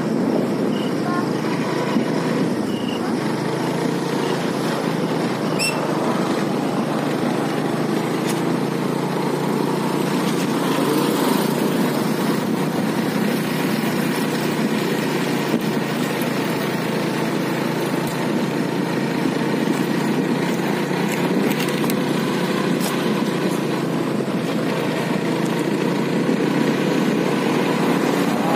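A motor vehicle engine running at a steady pace: an even, dense drone with no revving.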